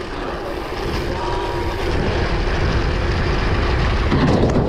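Wind rushing over the rider's action-camera microphone and mountain-bike tyres rolling down plastic ski-slope matting, a steady rush that grows louder as speed builds toward the jump.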